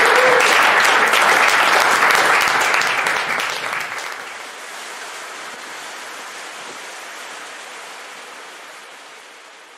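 Audience applauding. About four seconds in, the clapping gives way to a quieter steady wash of ocean surf that slowly fades.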